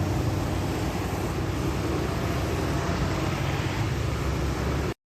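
Steady vehicle rumble: a low engine-and-road drone with hiss. It cuts off abruptly near the end.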